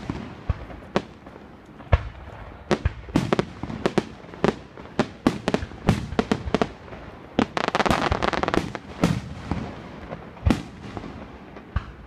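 Aerial firework shells bursting in quick, irregular succession: a string of sharp bangs, with a dense run of rapid crackling about eight seconds in.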